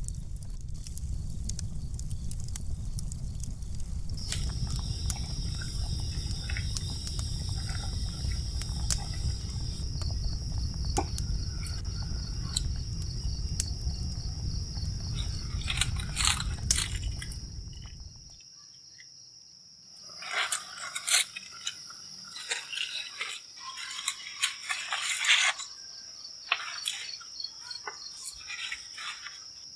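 A cricket trilling steadily at a high pitch, joined about four seconds in, over the low rumble and crackle of a wood cooking fire. The rumble cuts off a little past halfway, leaving the cricket and scattered sharp crackles and clicks.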